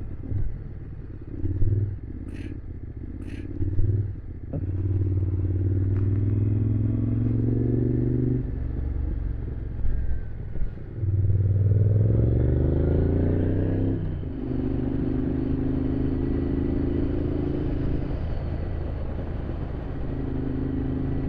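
Motorcycle engine heard from the rider's seat, rising in pitch as it accelerates, dropping at a gear change, rising again and dropping once more, then holding steady at cruising speed.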